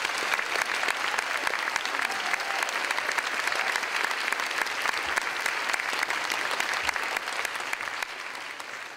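Audience applauding, many hands clapping at once; the applause drops off about eight seconds in and starts to fade.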